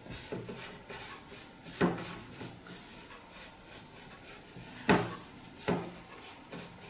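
Silicone spatula stirring and scraping flour and vegetable oil in a stainless steel mixing bowl, mixing an oil-and-flour inner dough: a run of short rasping strokes, with louder strokes about two seconds in and again around five seconds in.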